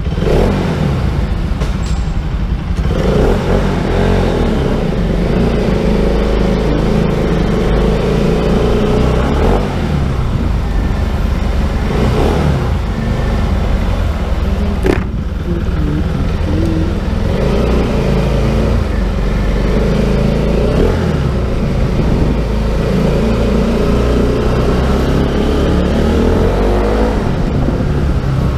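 Motorcycle engine running as the bike rides slowly through an enclosed parking garage, its note rising and falling several times with the throttle.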